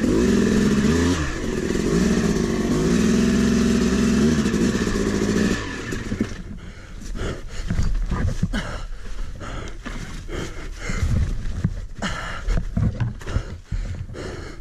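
Two-stroke Yamaha YZ250 dirt bike engine revving up and down as it is worked through a rut. About five and a half seconds in the engine sound drops away, leaving scattered knocks and scrapes as the bike is handled in the rut.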